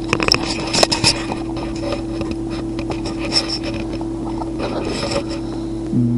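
Short clicks and light scraping of hands handling small objects, thickest in the first second, over a steady low hum.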